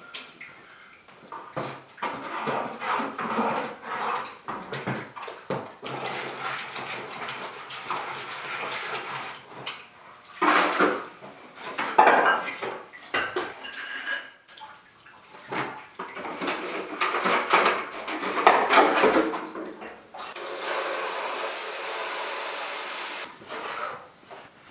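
Containers and tools clattering and knocking in a utility sink while glaze buckets are rinsed, with water splashing. Near the end a tap runs steadily for about three seconds.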